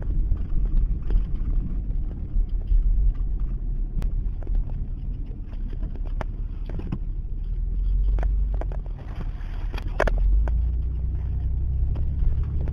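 A car being driven, heard from inside: a steady low rumble of engine and tyres on the road, with scattered short clicks and knocks.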